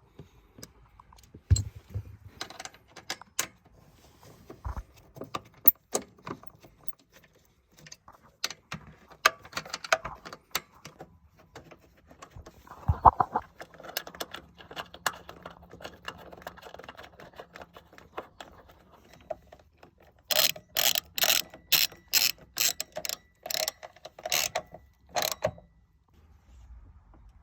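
Hand-tool work on a car door's check strap (door brake): scattered metallic clicks and knocks. Near the end comes a run of about a dozen sharp, evenly spaced clicks, two or three a second, like a ratchet being worked.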